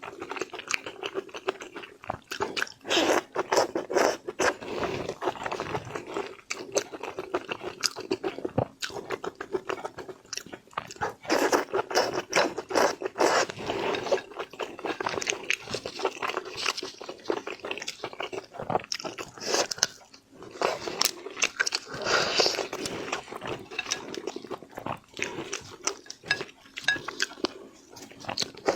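Close-miked chewing and crunching of seafood: a dense run of sharp crackling bites, one after another.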